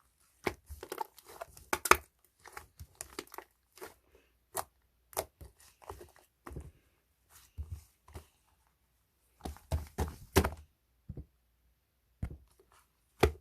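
Slime being squished and stretched by hand: irregular sticky clicks, pops and crackles with short pauses between.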